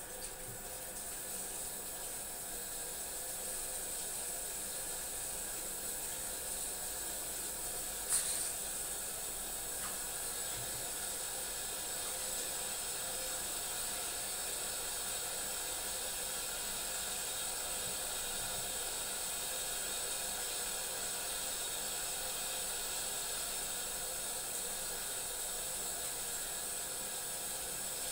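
Tap water running steadily into a bathroom sink as a cat is washed in the basin, heard as an even hiss. There is one brief click about eight seconds in.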